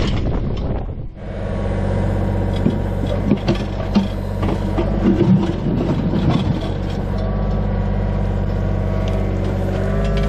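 Mini excavator's diesel engine running steadily while the bucket digs the trench, with clunks and scrapes of soil and stones in the middle few seconds. Wind on the microphone is heard during the first second.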